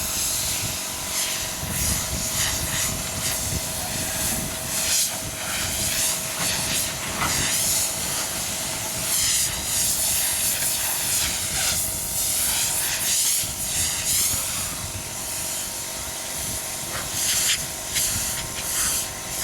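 Compressed-air hiss coming in repeated surges, typical of a spray gun at work, over a steady machine hum with a constant tone.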